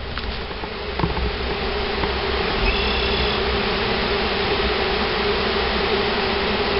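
A mass of about 3,000 honey bees from a freshly dumped package buzzing in a steady, loud hum over an open hive box, growing louder over the first couple of seconds and then holding.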